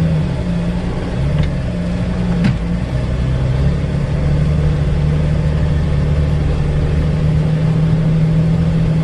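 A 2004 Jeep Wrangler Rubicon's 4.0-litre straight-six engine pulling steadily in four-low on a climb, heard from inside the cab. The engine note wavers for the first few seconds and then holds even, with two faint knocks about one and a half and two and a half seconds in.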